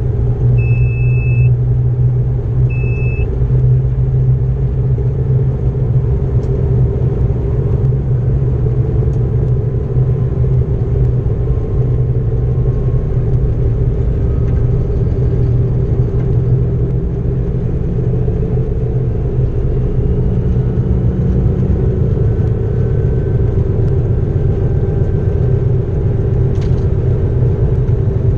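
Class 232 ('Ludmilla') diesel locomotive's engine running steadily, a loud, deep rumble heard from inside the driver's cab over the rolling of the train. Two short high beeps sound near the start, and there is a single click near the end.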